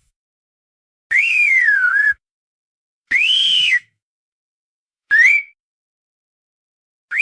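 Loud, shrill whistle sounding in separate short blasts with dead silence between them. Each blast bends in pitch: the first dips and comes back up, the second rises and falls, the third is a short upward sweep. A breathy hiss rides over each tone.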